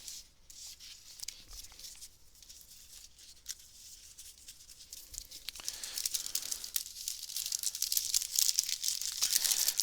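Card-game booster pack wrapper being torn open and crinkled: a crackle of many small ticks that grows denser and louder over the last few seconds.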